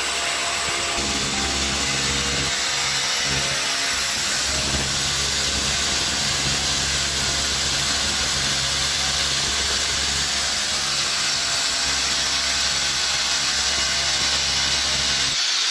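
Handheld electric drill boring into an interlocking mud brick, its motor running steadily under load with a loud hiss, then stopping just before the end.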